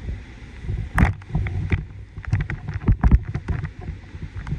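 Irregular clicks and knocks picked up through a helmet-mounted phone clamp, over a low rumble of handling noise, as a whitewater kayaker sets off. The loudest knocks come about a second in and again around three seconds in.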